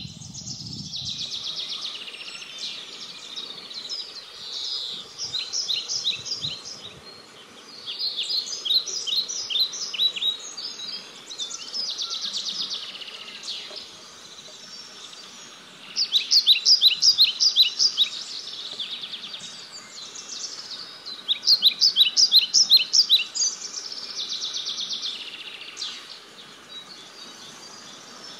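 Songbirds singing: short phrases of rapid high notes repeated every few seconds, with the loudest phrases a little past halfway.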